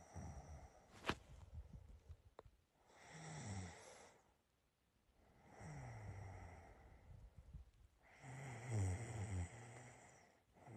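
Quiet snoring of a sleeping person: about four slow snores a couple of seconds apart, each a low buzz that drops in pitch. A single sharp click sounds about a second in.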